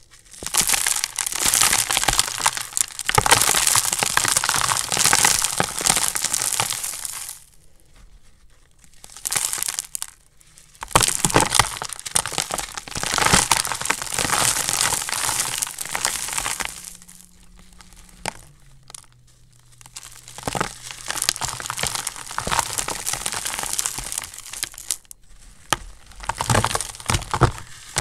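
Dry blocks of dyed gym chalk and cornstarch being squeezed and crumbled by hand, a dense crunchy crackling. It comes in several long squeezes of a few seconds each, with pauses of a second or two between them.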